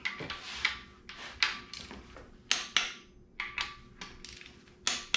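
Torque wrench on an engine block's main bearing cap bolts: a series of sharp metallic clicks, about nine, spaced irregularly, some ringing briefly. These are the bolts being re-checked at 45 ft-lb torque after new main bearings were fitted.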